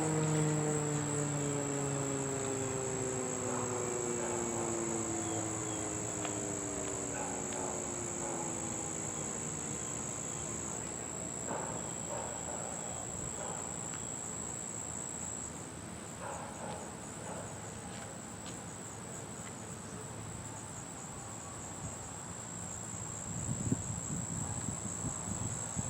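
Federal Signal Thunderbolt 1000B outdoor warning siren winding down at the end of a test cycle, its pitch falling and fading over the first several seconds. After that comes a steady, high insect trill, with a low rumble near the end.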